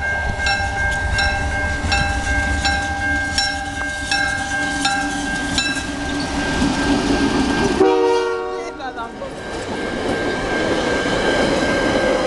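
Level-crossing bell dinging about twice a second over the low rumble of Le Massif de Charlevoix passenger train approaching. Just under eight seconds in, the locomotive sounds a loud horn blast of about a second, its pitch dropping as it passes. The passenger cars then roll by with a steady rumble of wheels on rails.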